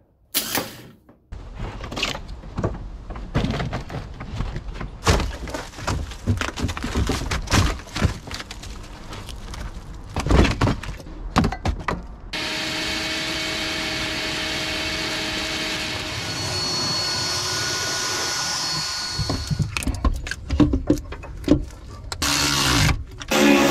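Irregular clattering and knocking of tools and metal parts being handled, then a Craftsman wet/dry shop vacuum running steadily for about seven seconds, then more tool clatter near the end.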